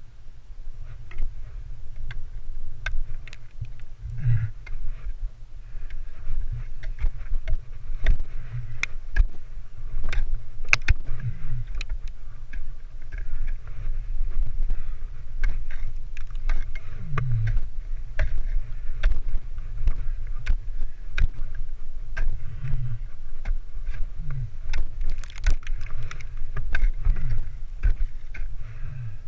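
Ice axe picks and crampon points striking and scraping on frozen waterfall ice: many sharp, irregular strikes over a steady low rumble on the microphone.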